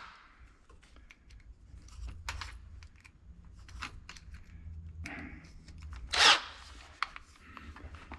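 Small clicks and scrapes of hand tools being handled while a drill bit is swapped for a 1/8 inch bit, with one louder rustling scrape about six seconds in, over a low shop hum.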